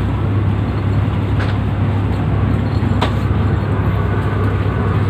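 Steady low drone of an express diesel railcar heard from inside its passenger car, with a faint click about one and a half seconds in and another about three seconds in.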